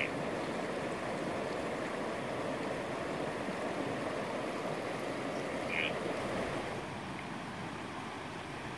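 Steady rush of the Iška river flowing over its stony bed, with one brief high-pitched sound about six seconds in; the rush drops a little in level about a second later.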